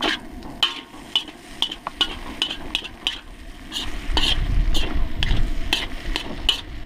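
Metal spoon scraping and stirring fried rice across the bottom of a hot metal pan, about two scrapes a second, with the rice frying. The scraping lifts the browned fond off the pan bottom.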